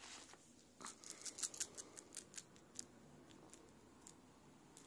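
Faint, quick run of light irregular clicks and rustling for about two seconds, starting about a second in: a kitten and a hand scuffling over a small toy mouse on the crinkly nylon cover of a cat toy.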